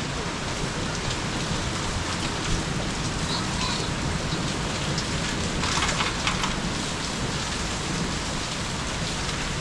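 Heavy rain falling steadily, a dense even hiss of rain on surfaces, with a short burst of louder close spattering about six seconds in.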